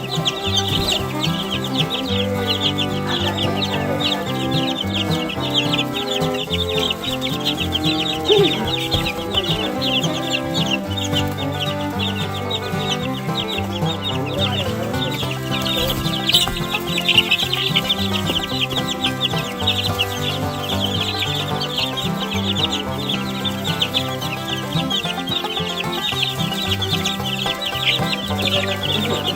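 A brood of two-week-old Barred Rock chicks peeping rapidly and without pause, worked up over bits of cooked egg, with background music underneath.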